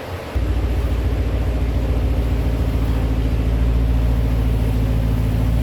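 Truck engine running steadily at idle, with a low, evenly pulsing note that cuts in abruptly about half a second in.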